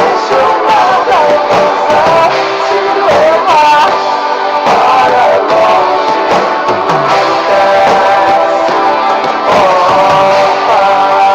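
Band music, the instrumental close of a song: a lead melody sliding up and down in pitch over sustained chords.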